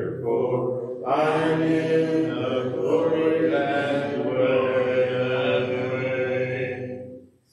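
Congregation singing a hymn in unaccompanied (a cappella) harmony, ending on a long held final chord that fades out just before the end.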